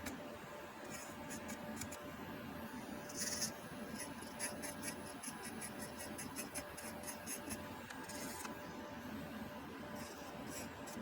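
Manicure dust vacuum's small fan motor running steadily, with scattered light ticks and scratching and a couple of brief hisses.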